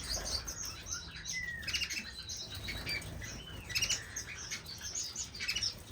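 Many small cage finches and canaries chirping together, in quick overlapping short calls with a few down-slurred whistled notes.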